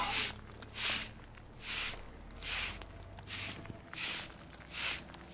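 Short straw hand broom sweeping a dusty concrete slab: even, regular swishes, a little more than one a second, about seven in all.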